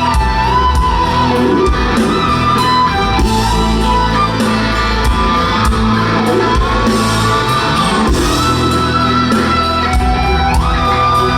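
Live rock music played loud, with electric guitar and a lead line of long held notes that slide up to new pitches a few times.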